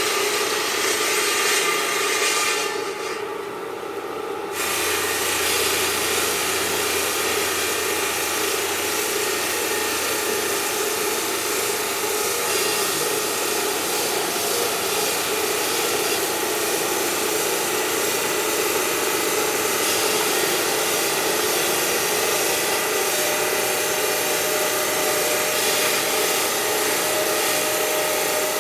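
Marble-processing machinery grinding against stone, a loud, steady abrasive noise with a constant hum. It briefly dulls about three seconds in, then carries on unchanged.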